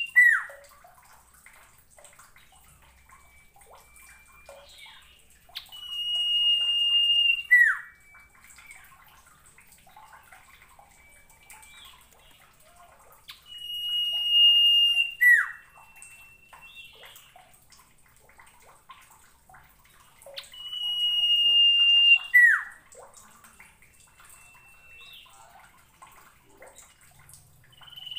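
Common iora (sirtu) singing: a long, steady high whistle that ends in a sharp downward slur, given three times about seven seconds apart, with softer, lower flat whistles in between.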